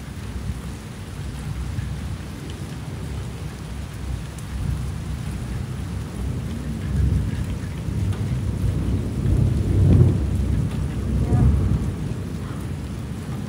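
Rolling thunder over steady rain. The rumble builds about seven seconds in, is loudest around ten seconds in with a second swell just after, then eases.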